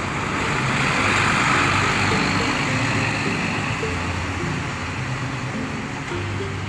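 Intercity coach bus pulling away and driving off, its noise swelling about a second in and then easing as it moves away, with background music underneath.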